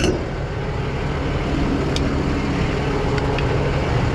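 Truck engine idling steadily, with wooden blocks knocking as they are stacked into a compartment: one knock at the start, another about two seconds in, and a few light taps later.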